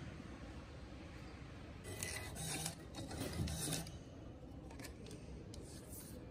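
Kiosk receipt printer printing and feeding out a paper receipt: a broken, buzzing run of about two seconds, followed by a few light clicks near the end.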